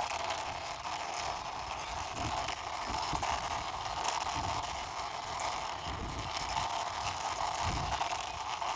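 Toy police motorbike pushed along by hand, its small wheels rolling over the surface in irregular low rumbles, over a steady hum.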